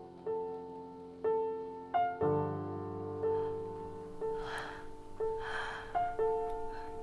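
Slow, sparse piano music: single notes struck about once a second, with a fuller low chord coming in about two seconds in. Two short breathy rushes of noise are heard around the middle.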